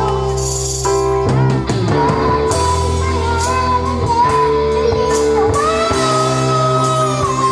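A boy singing a melody into a handheld microphone over instrumental backing, holding some notes long.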